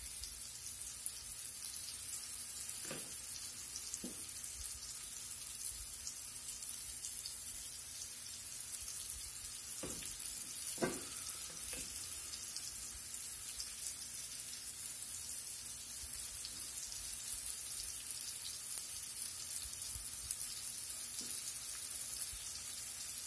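Cube steaks sizzling steadily as they sear in butter and vegetable oil in a stainless steel skillet. A few light knocks come through, two early and two about halfway.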